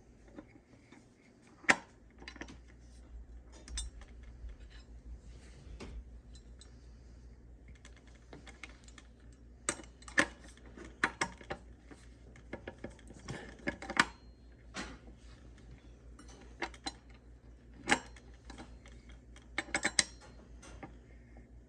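Bicycle crankset parts being handled and fitted: scattered sharp metallic clinks and clicks as the crank arm and spindle are worked into place, over a faint low hum.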